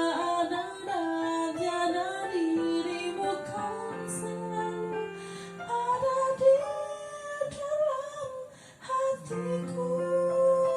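Music: a woman singing a slow melody with long held notes over soft instrumental backing.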